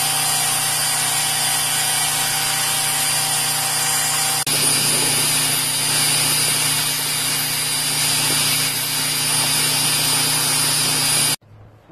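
Belt grinder running with a steel knife blade held against the belt: a steady grinding hiss over the motor's hum. There is a brief break about four and a half seconds in, and the sound cuts off abruptly near the end.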